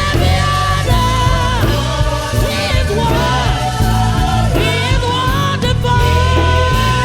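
Live worship music: a band playing with singers holding long sung notes over a steady bass.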